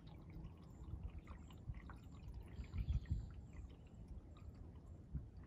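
Faint dripping and trickling of water from kayak paddle strokes on calm water, with a louder low thump about three seconds in.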